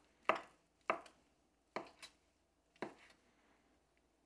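Large kitchen knife chopping mozzarella into cubes on a wooden cutting board: four sharp knocks of the blade on the board, about a second apart, all within the first three seconds.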